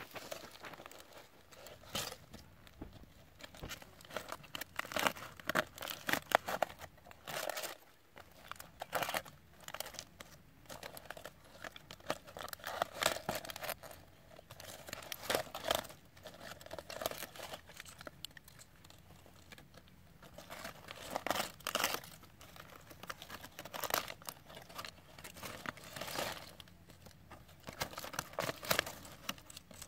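Aluminium foil being crinkled and pulled open by hand, in irregular bursts of crackling rustle, as it is unwrapped from a baked chicken.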